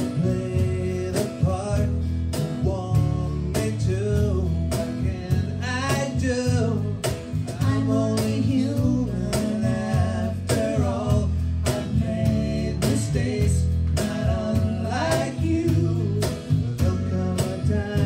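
Live folk-rock band playing a song: a lead vocal over accordion, acoustic guitar and electric bass, with a steady cajon beat.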